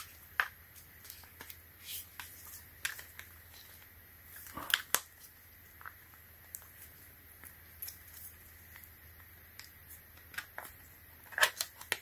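Scattered clicks, scrapes and snaps of a hard plastic iBlason Armorbox case being pried off a dummy Samsung Galaxy Z Flip 6, with a cluster of clicks about five seconds in and another near the end.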